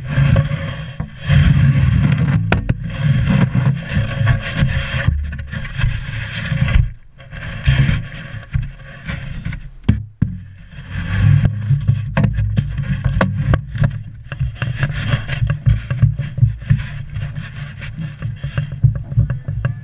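Water rushing and slapping along the wooden hull of a sailing longboat under way, heard right at the waterline, with a steady low rumble and many irregular knocks.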